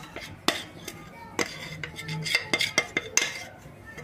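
A spoon scraping and clinking against a glass mixing bowl as sticky bread dough is scraped out onto the counter: a quick series of knocks and scrapes, busiest in the second half.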